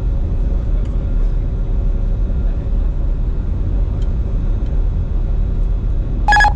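Steady cockpit noise of a Bombardier Challenger 605 business jet on final approach: a low rumble of airflow and engines. Near the end comes a short electronic beep.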